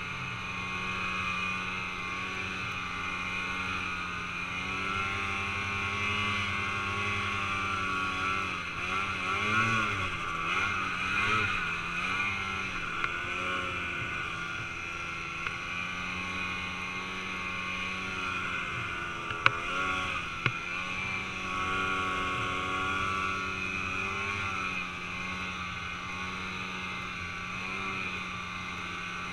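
Snowmobile engine running steadily under way through deep snow, heard from the rider's helmet. Its pitch wavers up and down about ten seconds in as the throttle changes. A few sharp clicks come around twenty seconds in.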